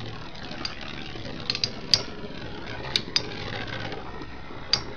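Two Beyblade spinning tops, Earth Eagle and Evil Befall, spinning with a steady whirr and clashing against each other in sharp clicks, about six times at irregular intervals.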